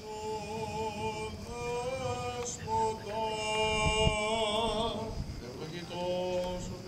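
A man chanting a Greek Orthodox prayer, holding long wavering notes with short breaks between phrases.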